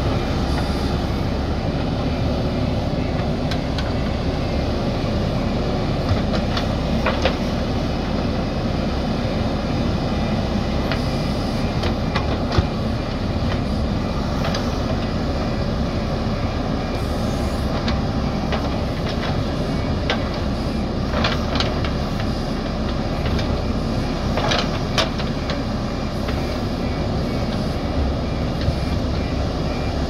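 JCB backhoe loader's diesel engine running steadily under load as it pushes soil, with a few sharp metallic clanks from the machine and bucket.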